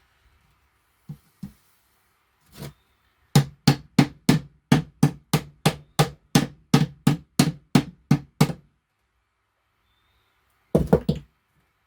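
Hammer blows: a few single knocks, then a steady run of about seventeen strikes at roughly three a second, and a quick cluster of strikes near the end.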